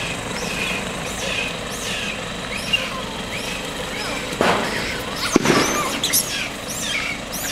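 A steady background hum with short high chirping calls repeating about twice a second, broken by two louder sharp sounds about four and a half and five and a half seconds in.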